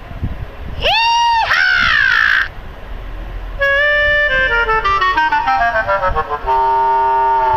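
A string of short comic sound effects: a pitched tone that swoops up and back down twice, then a quick run of notes stepping down in pitch, then a steady horn-like blare that starts near the end.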